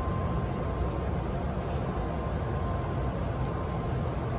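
Odakyu 1000 series renewed commuter car standing in a station, heard from inside: steady low hum and rumble of its on-board equipment, with a faint steady high whine over it and two faint ticks.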